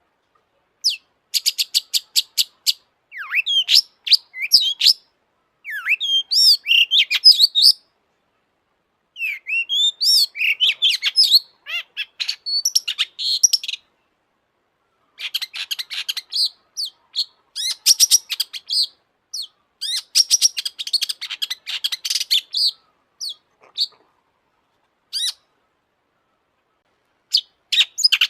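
Long-tailed shrike (cendet) singing: phrases of rapid clicking notes and varied high chirps and trills, several seconds each, broken by complete silences between phrases.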